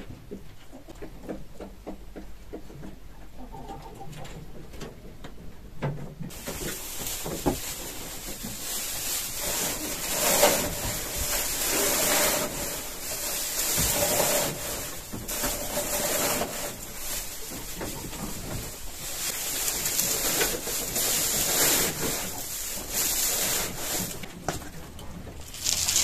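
Dry hay rustling and crackling as it is pushed by the armful into wooden rabbit hutches. It starts loudly about six seconds in and swells and falls with each push.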